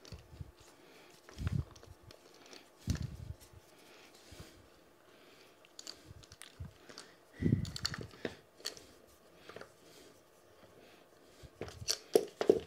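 Metal parts of a bicycle repair stand being handled and unscrewed: a few dull knocks and some rubbing, with a quick run of sharp clicks near the end.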